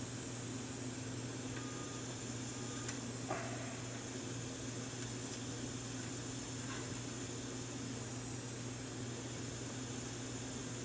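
Butane gas soldering iron hissing steadily while its tip is still heating up, with a steady low hum underneath.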